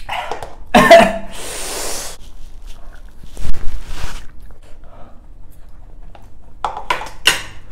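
A man's pained cry about a second in, followed by a long hissing breath, the reaction to the burn of ghost-pepper instant noodles, with more sniffing and short pained noises as he wipes his nose and eats on.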